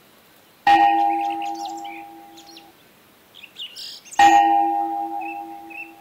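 A bell struck twice, about three and a half seconds apart, each strike ringing out and fading over about two seconds, with birds chirping between the strikes.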